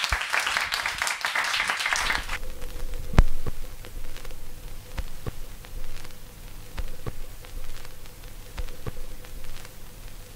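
Audience applauding with dense clapping, which cuts off suddenly about two seconds in; afterwards only scattered clicks and knocks over a faint steady hum.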